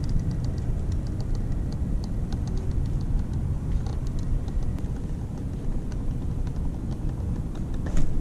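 Fishing reel clicking in a rapid, uneven run of fine ticks as a snagged line is worked against the tide, over a low rumble of wind on the microphone. A sharper knock comes near the end.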